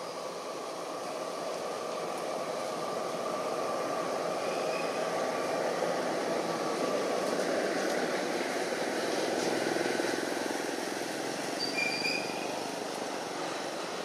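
Steady, rushing outdoor background noise that swells slightly in the middle, with a short high chirp about twelve seconds in.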